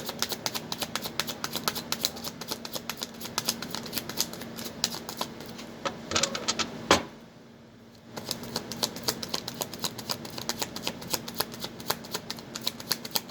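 A deck of reading cards being shuffled by hand: a fast, continuous run of papery clicks. A little past halfway comes a sharper snap, then a brief pause before the shuffling starts again.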